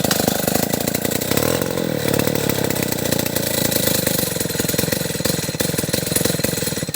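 Stihl 070 two-stroke chainsaw running loud and steady throughout.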